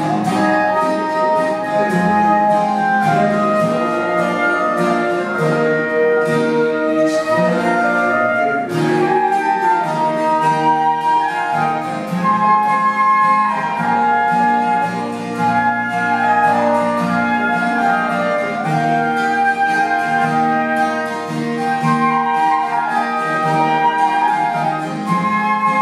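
Two concert flutes playing a melody together over a strummed acoustic guitar.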